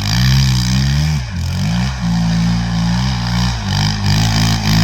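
Suzuki LTR 450 quad's single-cylinder four-stroke engine revving up and down several times, the throttle blipped on and off while the quad works through mud.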